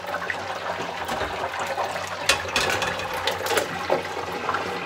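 Electric deep fryer running noisily, which the cook says was acting up: a steady hiss and hum with scattered crackles.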